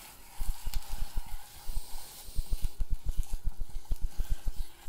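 Spatula stirring and pressing ground plant-based sausage in a small nonstick saucepan on a gas stove, making a quick, uneven run of dull knocks and scrapes over a faint sizzle of the meat frying.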